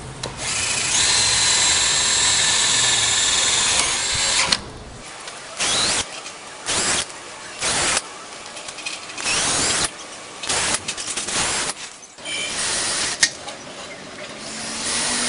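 Bosch 18 V cordless drill/driver with a PH2 bit driving self-drilling screws into steel C-section. It runs loud and steady with a high whine for about four seconds, then in a string of short bursts, one per screw.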